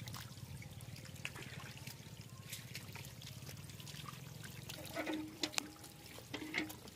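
Faint trickling and sloshing of shallow muddy water, stirred by hands and bare feet working through it, with a few small splashes and ticks.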